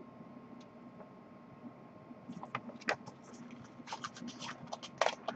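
Pages of a paper booklet being turned and handled: a quiet start, then a cluster of short rustles and crackles from about halfway in, the loudest just before the end.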